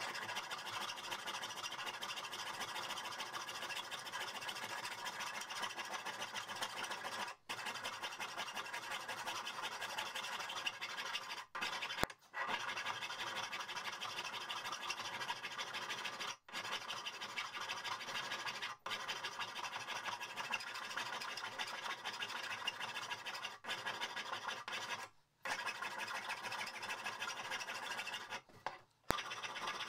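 Steady abrasive scratching of the steel hammer head as it is sanded, broken several times by short silent breaks.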